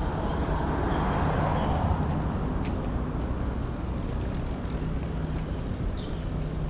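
Street traffic: a steady engine hum with a motor vehicle passing close by about a second in.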